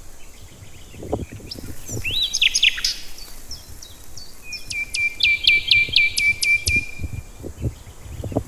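Songbirds chirping, with a run of about eight quick, downward-sweeping whistled notes in the middle. Soft low knocks are heard here and there underneath.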